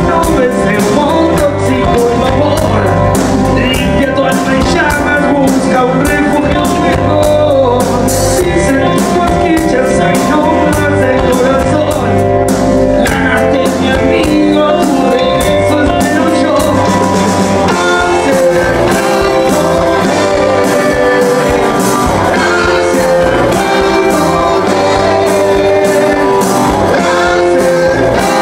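Rock band playing live and loud: electric guitar, electric bass and drums with a singer's vocals.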